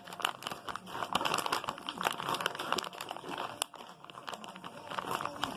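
Very sticky slime being squeezed and pulled by hand, giving a dense, irregular crackling and clicking.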